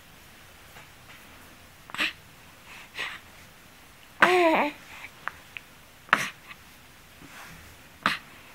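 A two-month-old baby making short breathy noises every second or two, with one brief wavering coo about four seconds in.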